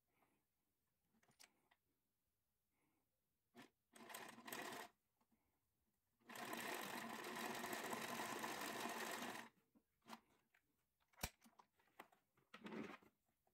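Electric domestic sewing machine stitching through knit sock fabric in short runs: a brief run about four seconds in, then a steady run of about three seconds, and another brief burst near the end, sewing a reinforcing line of stitches. A single sharp click comes between the runs.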